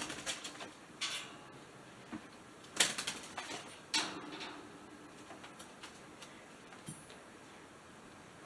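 A metal bird cage clicking and rattling: a few sharp rattles in the first four seconds, some with a short metallic ring, then fainter scattered clicks.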